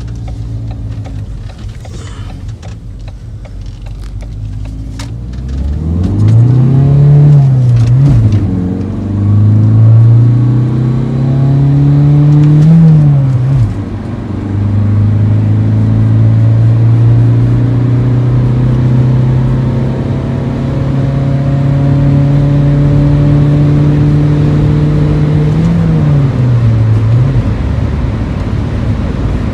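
Ford Courier van's engine heard from inside the cab: running low and steady, then pulling away hard about six seconds in, the revs climbing and dropping at two gear changes, then holding steady at cruising speed, with one more brief rise and drop near the end.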